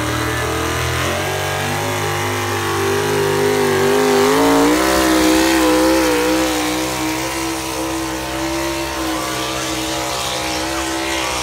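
Square-body GMC pickup truck's engine running hard under load on a truck-pull track. Its pitch wavers and climbs about two to five seconds in, then holds fairly steady.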